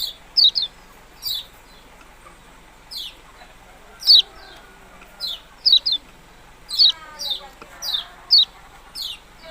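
Kecial kuning songbird calling: short, sharp, high 'ciak' chirps that dip slightly in pitch, often two in quick succession, about fifteen at irregular intervals.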